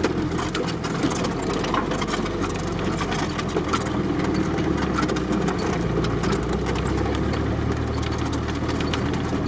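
Off-road vehicle's engine running steadily as it drives along a rutted mud track, heard from inside the cab, with frequent clicks and knocks from the body and track.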